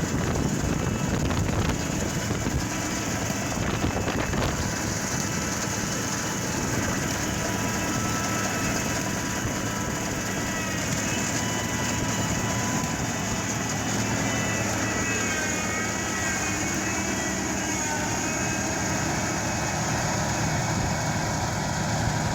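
John Deere 2320 self-propelled swather running steadily while it cuts canola, its Chrysler slant-six engine and header working together.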